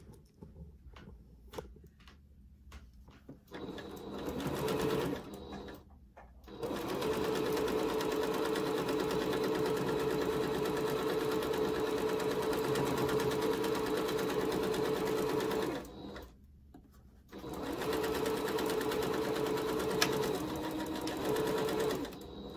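Electric computerized sewing machine stitching fabric, running in stretches that start and stop: a short run about four seconds in, a long steady run of about nine seconds, a brief pause, then another run near the end.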